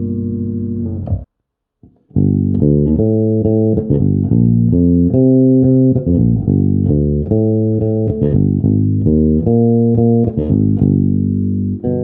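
Electric bass guitar: a held note that is cut off about a second in, a short silence, then a line of plucked notes changing about twice a second.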